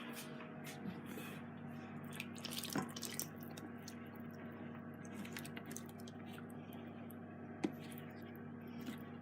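Melted butter being poured and dripping into a bowl of flour and sugar, with small drips and a couple of light knocks, over a steady low hum.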